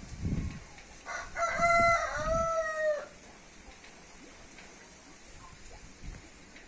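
A rooster crows once, starting about a second in and lasting about two seconds. Its pitch holds, then rises and falls in a second phrase. A few low thumps come before and under it, and a faint steady background follows.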